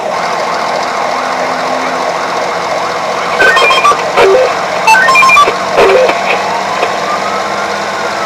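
Electronic emergency-vehicle siren changing patterns: fast repeating up-and-down sweeps, then loud short stepped tones around the middle, then a slow wail rising in pitch toward the end.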